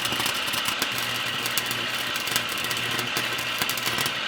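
Electric welder running a bead on the car's steel frame: a continuous crackle of the arc over a steady low hum.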